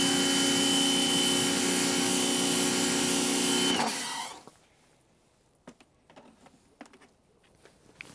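Pressure washer running, a steady motor hum with the hiss of its water spray, cutting off a little under four seconds in; a few faint clicks follow.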